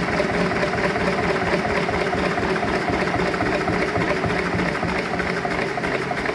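Lister-type 10 hp single-cylinder diesel engine running steadily, with an even pulsing beat.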